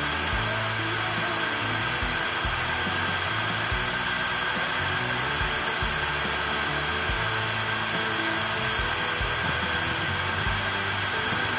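HDT CDD405 12-volt cordless drill running steadily at full speed with no load in its high gear (gear 2), turning about 1,450 RPM. Background music plays underneath.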